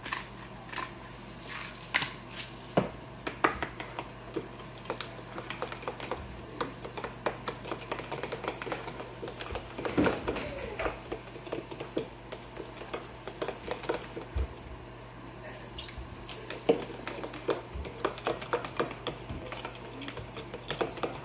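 Metal spoon stirring a thick mayonnaise-based garlic aioli in a small plastic bowl: quick, irregular clicks and scrapes of the spoon against the bowl, over a steady low hum.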